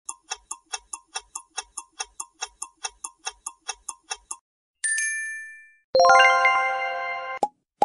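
Clock-ticking sound effect for a quiz countdown timer, about five ticks a second, stopping after about four and a half seconds. A short chime follows, then a louder ringing chord of several tones about six seconds in that cuts off suddenly, and a short pop near the end.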